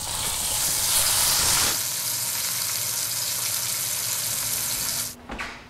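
Pork tenderloin searing in a little olive oil in a frying pan, sizzling steadily. It is being sealed so it browns outside and stays raw inside. The sizzle is louder for the first couple of seconds and stops abruptly about five seconds in.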